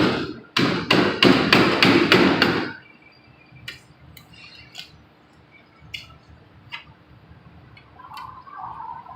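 Hand tool hammering on a sheet-metal car body panel to knock off a stuck sound-deadening pad: one knock, then a quick run of about five knocks a second for two seconds, then a few light scattered taps.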